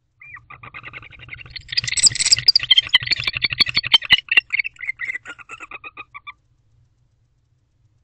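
Barn owl courtship call: a rapid series of short chirping notes that grows louder for a couple of seconds, with sharp clicks mixed in, then tapers off and stops about six seconds in.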